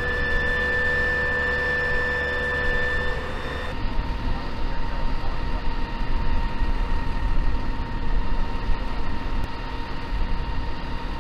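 Jet aircraft engine running at idle with a steady high whine. About four seconds in, the sound cuts to a rougher rumble with a lower steady whine.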